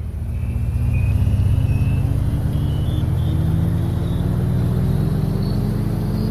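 Car driving on a highway, heard from inside the cabin: a steady low road and engine rumble, with the engine's pitch climbing slowly as the car picks up speed. The sound swells in over the first second.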